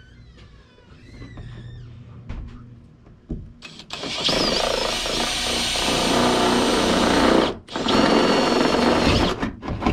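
Power drill running a 4 mm bit through the bracket holes into a Toyota Hilux's sheet-metal bonnet, in two runs with a whining motor tone. The first starts about three and a half seconds in and stops briefly, and the second ends just before the close.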